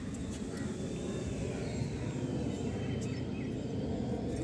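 Outdoor background noise: a steady low rumble, with a few faint bird chirps about halfway through.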